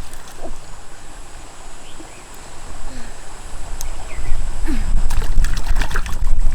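Pond water splashing and sloshing, with a run of short sharp knocks and splashes from about four seconds in.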